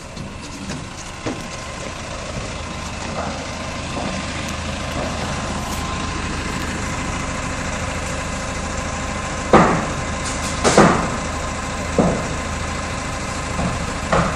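Forklift engine running steadily while the forklift pushes a small car into a shipping container, with four loud, short bangs in the second half.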